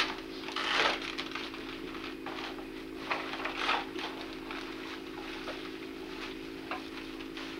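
Wrapping paper and tissue paper rustling and crinkling as presents are unwrapped, in a string of short scratchy rustles, loudest in the first second, over a steady low hum.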